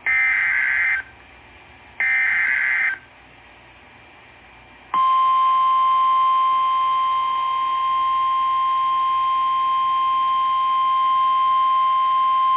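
Emergency Alert System SAME header: two one-second bursts of shrill digital data tones about two seconds apart. About five seconds in, the steady single-pitch NOAA Weather Radio warning alarm tone starts and holds, signalling that a warning message follows.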